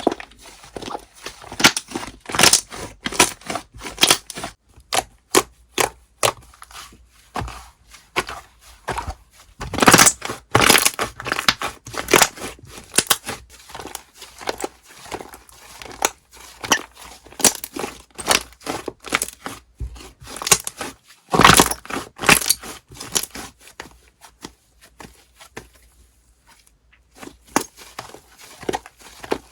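Slime being squished and worked by hand, giving irregular crackling clicks and pops in clusters, loudest about a third of the way in and again about two thirds in.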